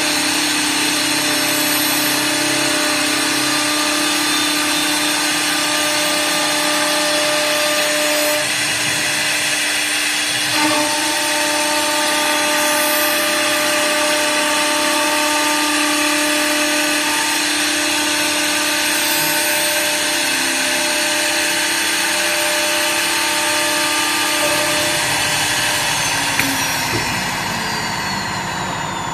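WS-L1516S CNC wood lathe running, its router spindles cutting spiral twists into turning wooden balusters. It makes a steady whine of several tones over a hiss of wood being cut. Near the end the whine falls in pitch.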